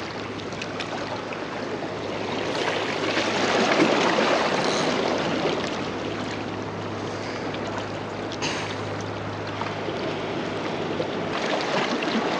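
Small waves lapping and washing against the rocks of a jetty: a steady wash that swells louder about three to five seconds in, then settles.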